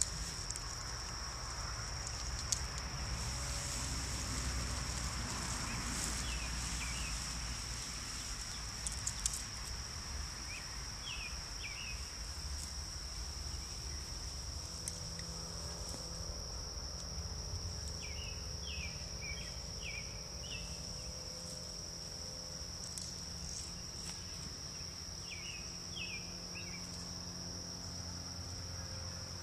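Steady, high-pitched insect chorus, typical of crickets on a summer evening, holding one unbroken tone. Over it come a few short chirps in small clusters, and there is a low background rumble.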